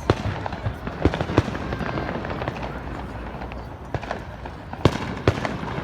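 Fireworks bursting: a string of sharp bangs over a steady rumbling background, with the loudest cracks just after the start, around a second in, and again about five seconds in.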